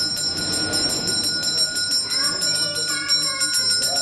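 Small ritual hand bell rung rapidly and without pause: a steady high ringing made of fast, even clapper strikes.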